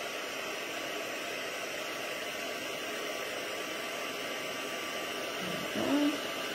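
Heat embossing tool blowing a steady hiss of hot air over stamped sentiments, melting the embossing powder. A short hummed voice sound rises near the end.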